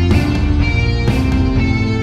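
Background music with a steady beat and guitar, chords changing about once a second.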